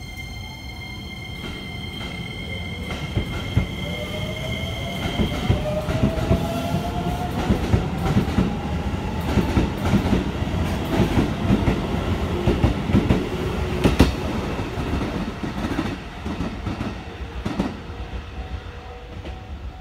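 Shin-Keisei N800 electric commuter train pulling away and accelerating past, its Toyo Denki IGBT VVVF inverter giving a whine that rises in pitch. The wheels rumble and clack over the rail joints as the cars go by, and the sound swells and then fades as the train draws away.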